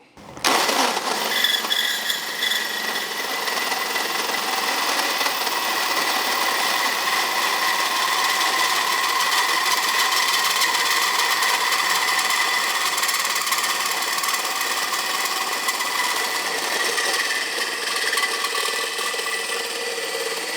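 Power drill driving a 52 mm plumBOSS holesaw through material: a steady grinding cut with a constant motor whine. It starts about half a second in and keeps an even pace throughout.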